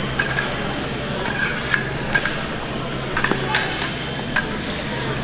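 Épée blades clinking and scraping together as two fencers engage: a scattering of short, sharp metallic clicks, with quick clusters about a second and a half in and again about three seconds in.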